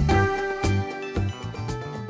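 Background music with a beat of percussion hits and bass notes, growing quieter toward the end as it fades out.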